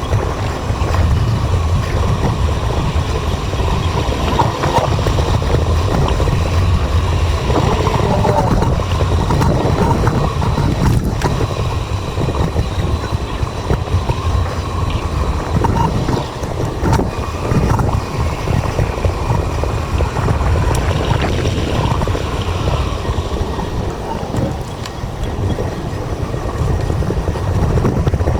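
Wind and road noise picked up by a GoPro on a moving bicycle: a steady low rumble with a rushing hiss.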